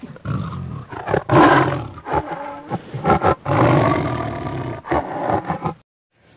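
Tiger roaring: a series of loud roars with short breaks between them, cutting off suddenly near the end.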